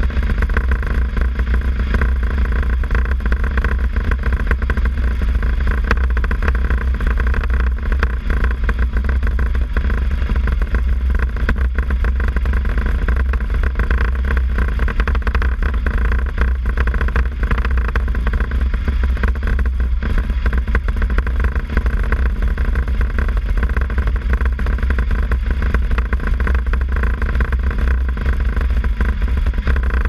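Motorcycle engine running at a steady pace on a gravel dirt track, a continuous even engine note over a heavy low rumble that does not rise or fall.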